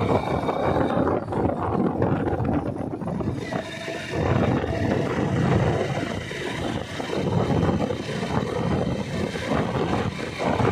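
Wind buffeting the microphone on a moving motorcycle, over the motorcycle's running engine, as an uneven rumble that surges and dips.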